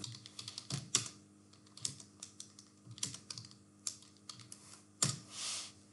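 Typing on a computer keyboard: irregular, quiet keystroke clicks as a terminal command is typed, with one louder keystroke about five seconds in followed by a brief soft hiss.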